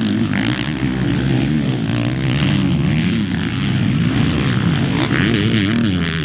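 Several 450cc four-stroke motocross bikes racing on a dirt track, their engines revving up and down in pitch and overlapping.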